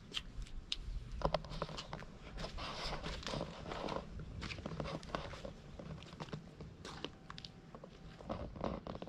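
Footsteps crunching on dry gravelly ground, with irregular clicks and scuffs.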